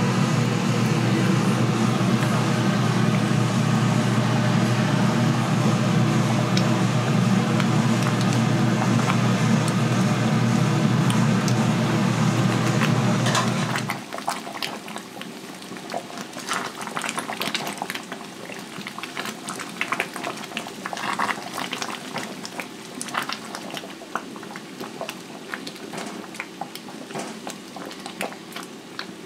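Chicken feet cooking over a charcoal grill, sizzling and crackling. For the first half a loud, steady rushing noise runs over it, then stops abruptly, leaving a quieter bed of irregular crackles and pops.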